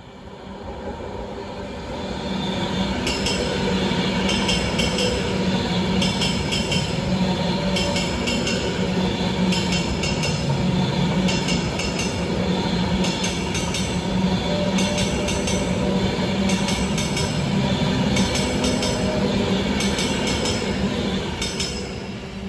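Pendolino electric express train passing at speed: a steady rush of wheels and air that builds over the first two seconds and fades near the end. Over it, wheels clatter on the rail joints in clusters of clicks about every second and a half as each coach goes by.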